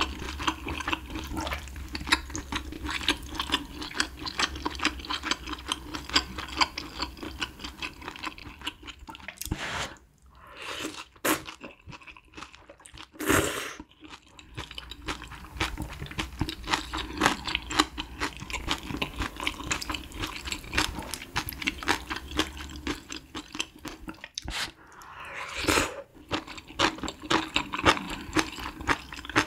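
Close-miked chewing and slurping of spicy malatang noodles and broth with coriander kimchi: a steady run of quick wet clicks and crunches, with a louder slurp from the spoon about halfway through.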